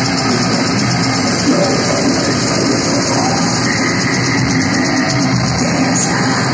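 Death metal band playing live and loud through a stage PA, with distorted electric guitar driving a steady, unbroken wall of sound.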